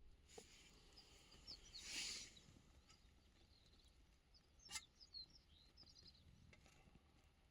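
Near silence outdoors: faint, scattered bird chirps, a soft rustle about two seconds in, and a single light click near the middle.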